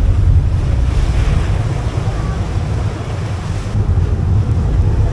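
Wind buffeting the microphone on the open deck of a moving ferry, over the rush of the boat's churning wake.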